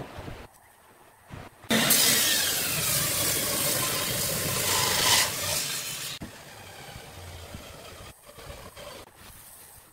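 Table saw cutting through a glued-up segmented pine block: the cut starts suddenly and loudly about two seconds in, its whine dropping in pitch under load, then the saw runs on more quietly until about eight seconds in.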